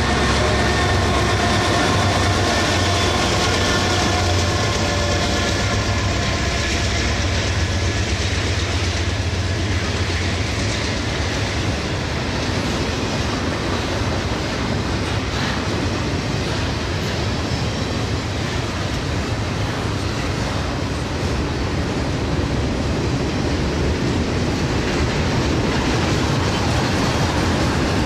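Norfolk Southern intermodal freight train rolling past in a steady rumble, with the clatter of wheels over the rail joints. A whine of several pitches in the first seconds fades as the train goes by.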